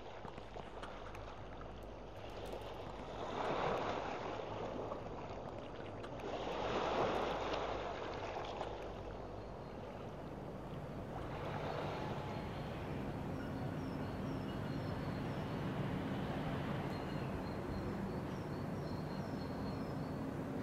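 Outdoor ambience: three swells of rushing noise, then a steady low hum with faint, repeated high chirps.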